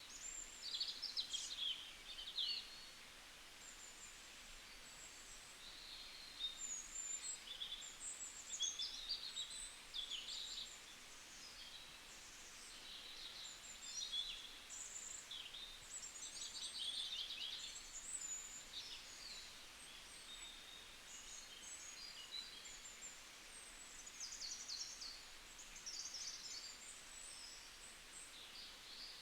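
Several small songbirds chirping and trilling, their short high calls overlapping in an irregular stream over a faint steady hiss.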